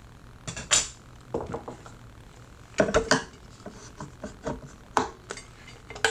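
Hair shears snipping and clicking as their steel blades open and close through tissue paper, in a series of sharp, irregularly spaced snips. These are test cuts to check the freshly sharpened edge, whose tips were pulling.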